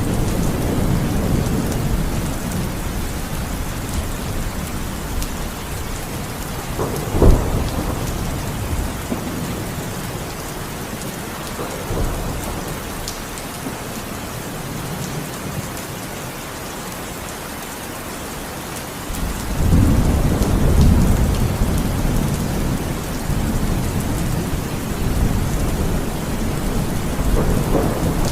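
Heavy rain falling steadily, with thunder: a sharp clap about seven seconds in, a smaller one a few seconds later, and a long low rumble rolling in from about twenty seconds on.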